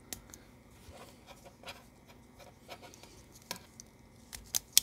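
Handling noise as an elastic band is stretched and wrapped around a plastic AA battery holder: soft rubbing and small scattered clicks, with a few sharper clicks near the end.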